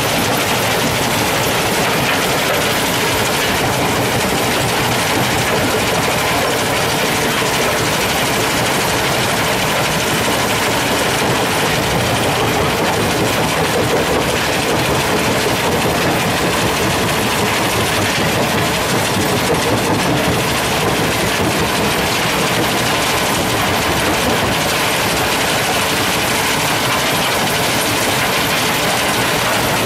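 Machinery of an alluvial cassiterite (tin ore) sand separating plant running: a loud, steady, even mechanical noise from the screening tower and belt conveyors.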